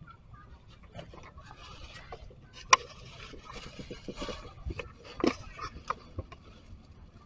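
Plastic carrier bag rustling and crinkling, with scattered small clicks and a sharp click about three seconds in, the loudest sound, and another a couple of seconds later.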